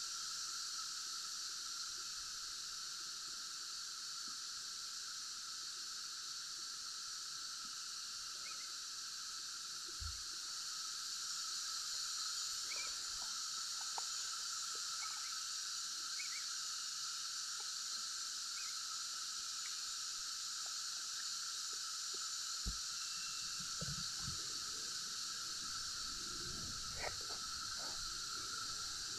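Steady chorus of insects droning on a couple of fixed pitches, with a few faint short chirps scattered through it and some soft low knocks near the end.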